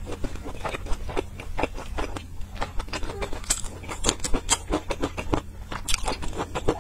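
Close-miked chewing of a mouthful of soft steamed bun: irregular wet clicks and smacks of the mouth, over a low steady hum.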